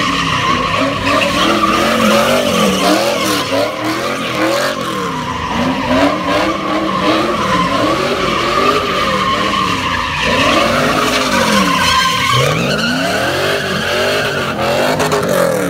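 Car doing a burnout: the engine revs rise and fall over and over, with a few deeper dips near the end, while the spinning rear tyres hold a steady high squeal.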